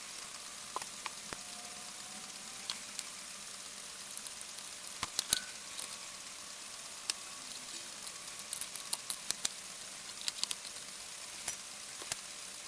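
Scattered small clicks and taps from handling tiny clock parts and tools on a workbench, over a steady background hiss.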